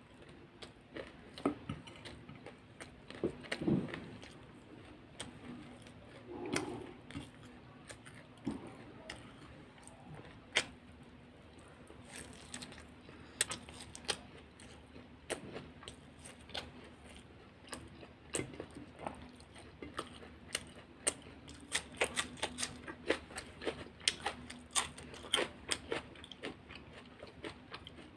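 A person chewing crunchy food close to the microphone: irregular crisp crackles and crunches, coming thicker in the second half, over a faint steady hum.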